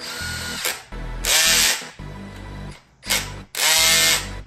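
Cordless clutch driver, not an impact gun, running connecting-rod cap bolts down in a few short whirring bursts, the longer ones rising in pitch, snugging the bolts without driving them to full torque.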